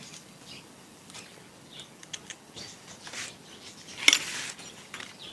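Scattered small clicks and rustles of airgun parts being handled, with one sharp, loud click about four seconds in.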